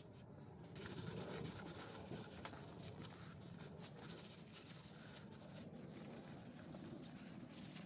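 A rag rubbing and wiping over the metal body and handwheel of an antique hand-crank sewing machine: faint, scratchy rubbing strokes.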